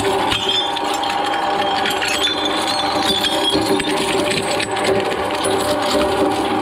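Twin-shaft shredder running with a steady drone as its toothed steel cutters grind and crack green glass wine bottles, with many sharp clinks and cracks of breaking glass.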